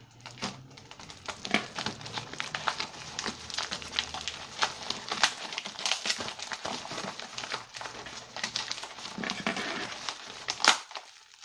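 Packaging being handled and opened by hand: crinkling, rustling plastic and card with many small clicks and taps, and one sharper click near the end.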